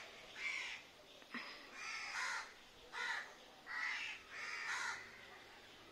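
Crows cawing: a run of about seven short, harsh caws, one after another.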